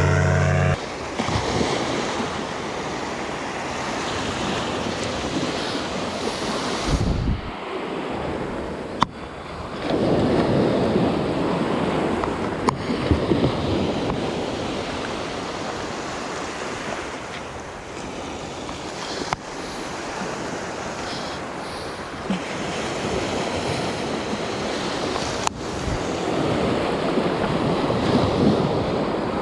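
Sea surf washing in, with wind on the microphone; the wash swells louder about ten seconds in and again near the end.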